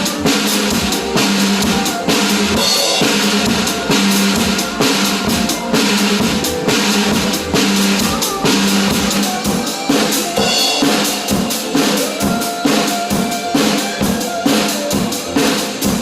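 Drum kit played along to a recorded pop song, with a steady dance beat of bass drum and snare hits over the backing track.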